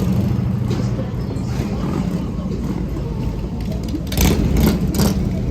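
Street traffic: a steady low rumble of vehicle engines passing, with two short loud hissing noises about four and five seconds in.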